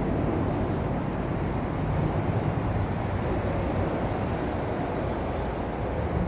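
Steady low rumble of distant traffic, even in level throughout.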